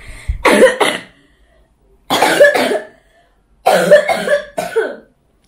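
Coughing from someone with a lingering cough: three short bouts of two or three coughs each, about a second and a half apart.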